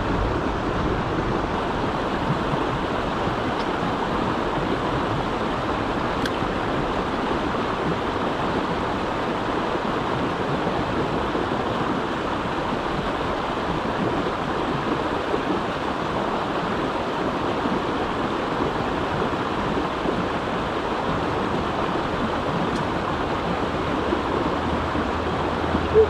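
Mountain stream rushing steadily over rocks: an even, unbroken wash of water noise.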